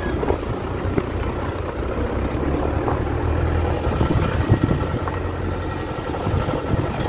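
Car engine running with road noise and small knocks and rattles, heard from inside the moving car: a steady low hum throughout.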